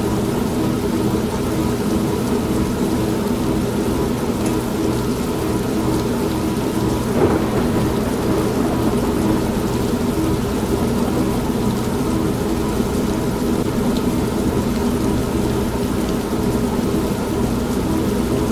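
An old non-automatic washing machine running with a steady hum, mixed with steady rain and low rumbling thunder. There is a brief louder burst about seven seconds in.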